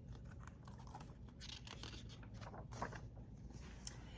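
Faint rustling and light crackling of paper, a picture book's pages being handled and turned.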